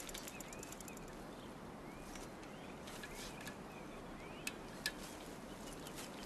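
Rapid ticking of a bicycle freewheel as the bike is wheeled along, stopping about a second in. Then birds chirping over a steady outdoor hiss, with two sharp clicks a little past the middle.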